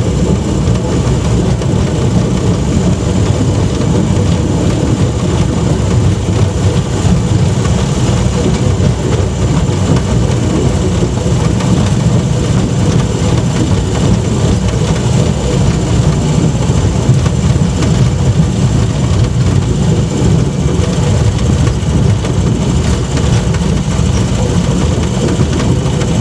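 Engine of a rail-converted Land Rover running steadily as it travels along 2 ft gauge track, heard from inside the cab; the sound is loud, even and mostly low in pitch.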